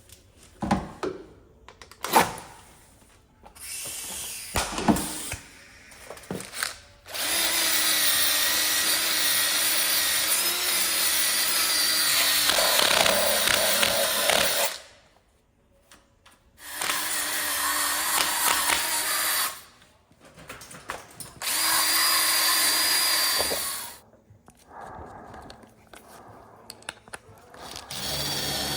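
Handheld power tool running in three bursts of several seconds each, the longest about seven seconds, with a steady high whine over a lower hum. Scattered clicks and knocks of handling and work come before the first burst.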